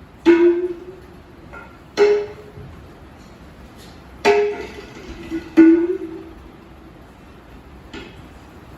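Folk instrumental music: four single, ringing pitched strokes, spaced a second or two apart, each dying away quickly, then a faint stroke near the end.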